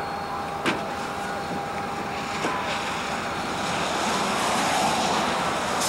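Highway traffic passing, a steady rush of engines and tyres that swells about four seconds in. A single sharp click about a second in.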